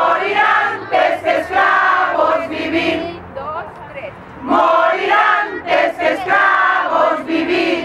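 A crowd of protesters' voices raised together in unison, in loud drawn-out phrases with a short break about halfway through.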